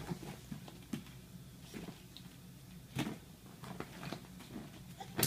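A baby's two new teeth grinding together, making faint, irregular squeaks and clicks; the sharpest click comes about three seconds in. A steady low hum lies underneath.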